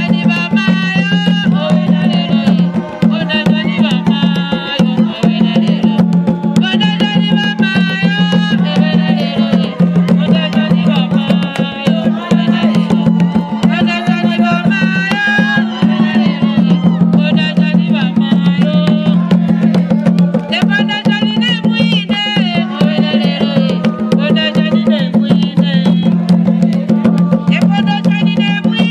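Traditional Zambian drumming: rapid, continuous hand strokes on tall wooden drums, with voices singing over it.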